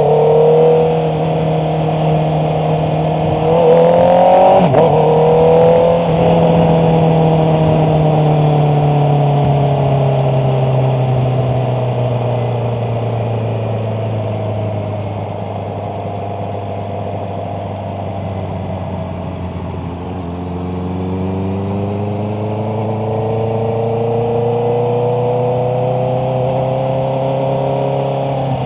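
Honda CBR650R's inline-four engine under way. Its pitch climbs sharply about four seconds in, breaks off abruptly at a gear change, then falls slowly for a long stretch as the bike slows. It rises again from about two-thirds of the way through as the bike accelerates.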